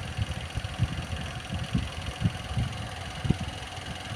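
Low, uneven background rumble with a few soft thumps, under a faint steady hiss.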